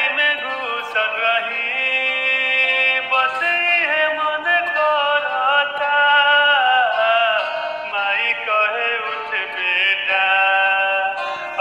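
A Bhojpuri song: a voice singing a gliding, held melody over instrumental backing.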